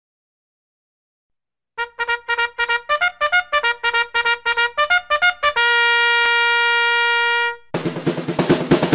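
Intro music: a trumpet fanfare starting about two seconds in, with a run of quick short notes and then one long held note, after which a full band with drums comes in near the end.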